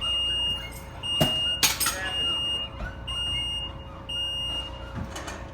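Electronic warning beeper sounding a high, even beep about once a second, each beep a little over half a second long. A sharp knock and a short clatter come about a second and a half in, over a low steady machine-room hum.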